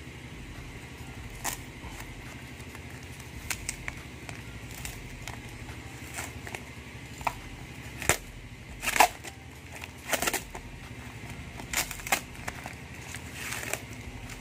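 Brown packing tape being peeled and a cardboard tube parcel handled and unwrapped by hand: scattered crackles and rustles, the loudest about halfway through, over a faint steady low hum.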